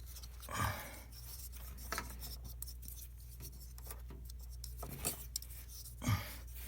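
Hands handling computer parts, likely RAM sticks being readied for the slots: faint rubbing and scattered light clicks over a steady low hum, with a couple of brief louder handling sounds.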